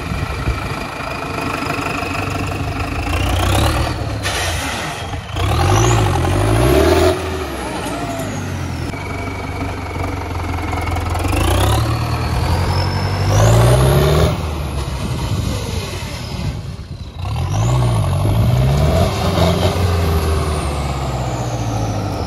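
Sonalika AK-47 tractor's diesel engine, through its tall straight exhaust stack, revved up and let off about four times as the tractor drives and turns, its pitch climbing with each rev and dropping back, with a high whistle rising and falling along with it.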